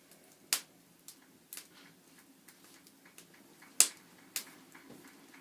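Wood fire crackling in a fireplace: irregular sharp pops and snaps, the loudest just before four seconds in.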